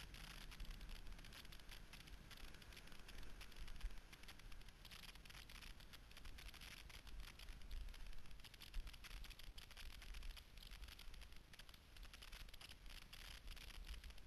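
Cross-country skis sliding fast over snow on a downhill run: a faint, steady hiss full of small scrapes and ticks, over a low wind rumble, muffled through a GoPro's housing.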